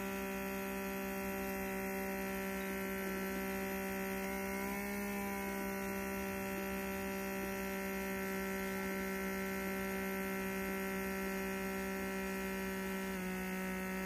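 FoodSaver handheld vacuum sealer running, its small pump motor giving a steady hum as it draws the air out of a zipper vacuum bag through the bag's valve.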